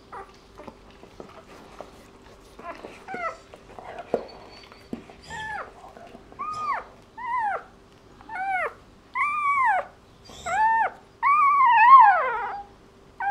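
Newborn puppy squealing: a string of short, high cries that rise and fall in pitch, starting about three seconds in and getting longer and louder, the longest near the end. A faint steady hum runs underneath.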